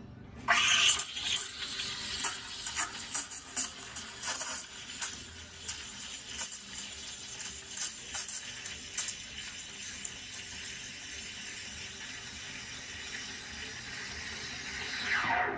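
Espresso machine steam wand steaming milk in a stainless pitcher. A loud hiss starts about half a second in, full of rapid spitting and chirping for the first ten seconds as air is drawn into the milk, then settles to a smoother steady hiss. Near the end it slides down in pitch as it dies away.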